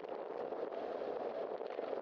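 Steady rushing noise of a bicycle riding on wet asphalt: tyres hissing on the damp road with wind on the microphone.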